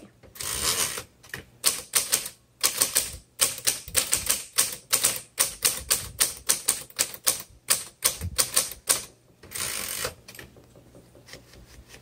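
Manual typewriter being typed on: a quick run of sharp key strikes, several a second. There is a longer noisy sound near the start and another about ten seconds in, then only faint clicks near the end.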